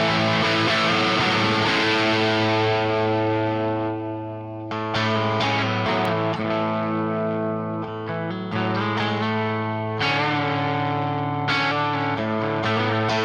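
Overdriven electric guitar chords from a Les Paul with 1958/59 PAF humbuckers, played straight into a 1966 Marshall JTM45 amplifier and miked on a Celestion V30 speaker. A chord rings out and fades for the first few seconds, then new chords are struck several times.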